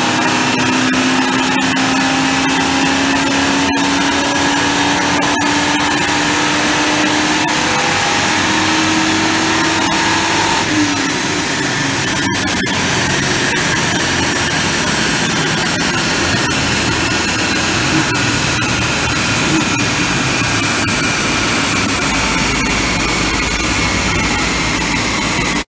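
A running engine: a loud, steady roar with a tone that rises slowly over the first ten seconds or so and then drops out, and a higher tone that falls slowly later on.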